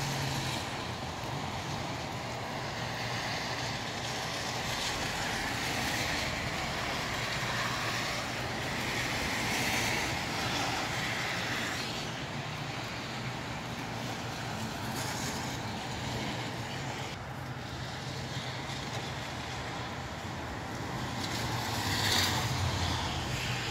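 Light rain and gusty wind: a steady hiss that swells and eases, loudest near the end, over a low steady hum.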